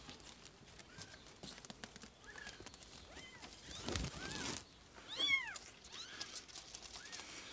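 Kittens mewing: short, thin, high-pitched calls that rise and fall, about one a second, the loudest a little after halfway. A short burst of rustling comes just before the loudest call.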